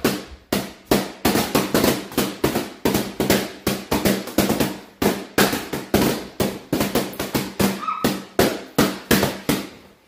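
Rapid string of balloon pops, about three to four a second, as the balloons of a balloon arch are burst one after another with barbecue skewers; each pop is sharp with a short room echo.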